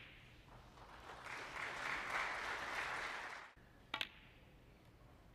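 Audience applauding in an arena, swelling for about three seconds and then cut off suddenly. About four seconds in comes a single sharp click of a snooker shot, the cue ball being struck.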